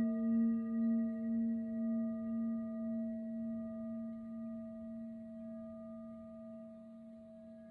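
Tibetan singing bowl tuned to A, struck once right at the start, ringing with a slow, wavering pulse and fading gradually.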